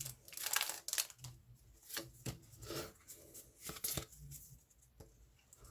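Pokémon booster pack and trading cards being handled: scattered short rustles, crinkles and card flicks.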